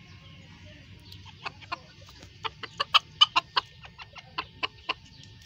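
Chickens clucking: a string of about fifteen short, sharp clucks starting about a second in, quickest and loudest around the middle and easing off near the end.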